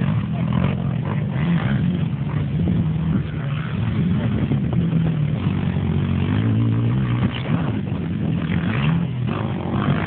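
Racing quad bike engines revving, their pitch rising and falling again and again as the riders open and close the throttle over the jumps.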